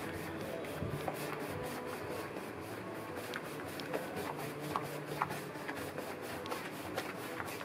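Paintbrush scrubbing paint onto a wall in quick back-and-forth strokes, about five a second: a steady dry rubbing with a few faint ticks.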